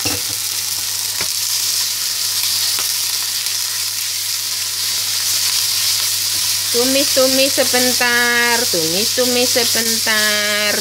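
Ground beef sizzling as it fries in oil in a nonstick frying pan with garlic and spring onion, a steady hiss throughout. From about two-thirds of the way in, the spatula starts stirring and breaking up the meat, and a run of short squeaky pitched tones comes in with it.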